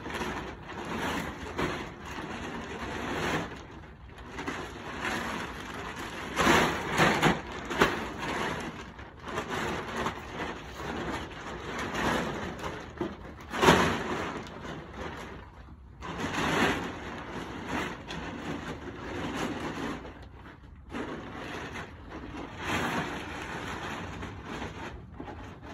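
A thick 5-mil plastic tarp crinkling and rustling in irregular bursts as it is unfolded and spread out, the loudest rustles about 7 and 14 seconds in.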